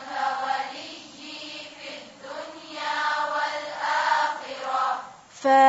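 A woman's voice softly holding long, slowly gliding melodic notes without clear words, in the style of a chanted Quranic dua. A louder recited phrase begins near the end.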